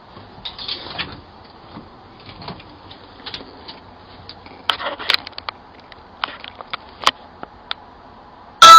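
Faint background hiss with scattered short clicks and rustles. Just before the end, a loud burst of ringing tones starts suddenly and then decays, like a chime or a musical sting.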